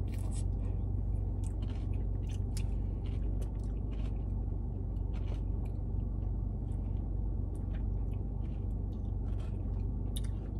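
A person chewing a mouthful of acai bowl, with many small irregular crunches, over a steady low hum.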